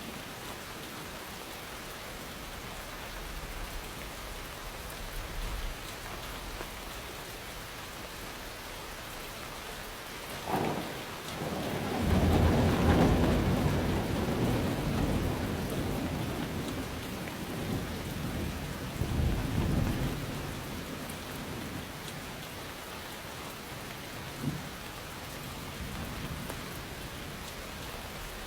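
Steady rain falling, with a thunderclap about a third of the way in followed by a loud rolling rumble that dies away in swells over several seconds.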